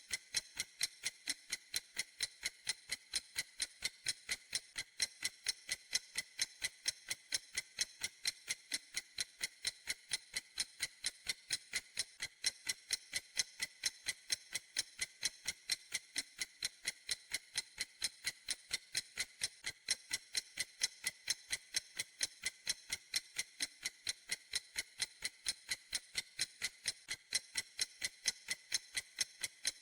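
Clock ticking steadily, several crisp, high ticks a second at a perfectly even rhythm.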